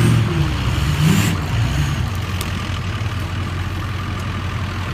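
Truck engine running, its pitch rising and falling a little in the first two seconds and then settling into a steady drone over a constant hiss.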